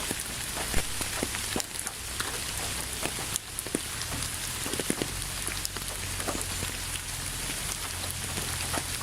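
Steady rainfall: an even hiss of rain with many distinct, sharp drops and drips striking a surface close by.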